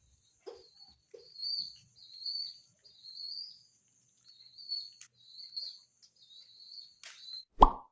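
Young pigeon squabs peeping: a run of about eight thin, high-pitched calls, each drawn out for about half a second. A loud knock comes near the end.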